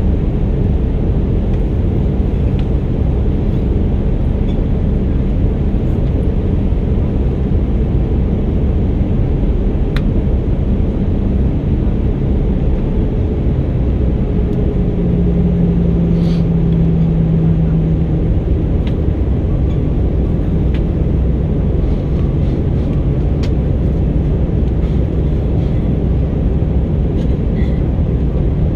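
Airbus A319 cabin noise in flight, heard from inside the cabin: a steady, loud low rumble of the jet engines and airflow, with a low hum that swells for a few seconds about halfway through.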